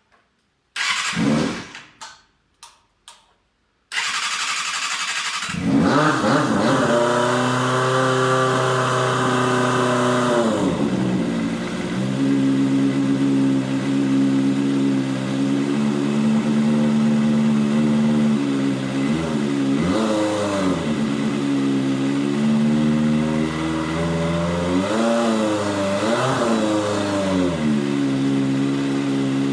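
Kawasaki Balius II's 250 cc inline-four engine started after a few clicks. It catches about five seconds in and runs at a raised idle, then settles to a lower steady idle, with two brief blips of the throttle near the middle and towards the end. This is the first run after an oil change, to check the engine.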